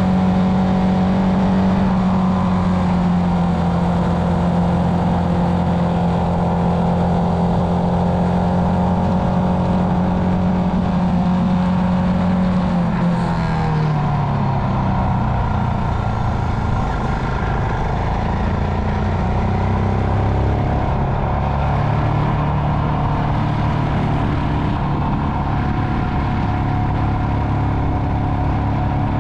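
Royal Enfield Himalayan's 411 cc single-cylinder engine running steadily under way. About halfway through the revs fall, and the engine settles at a lower, steady pitch.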